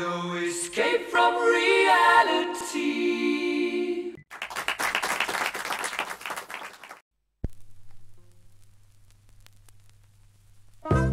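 A short a cappella vocal sting, then about three seconds of applause. After a brief silence there is a single click, followed by a low steady hum and faint surface crackle from the vinyl record before the song starts right at the end.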